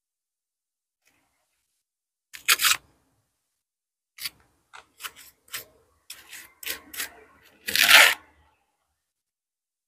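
Lime mortar being scraped and worked on a hand hawk: starting about two seconds in, a series of short scraping, crunching sounds, the loudest near the end.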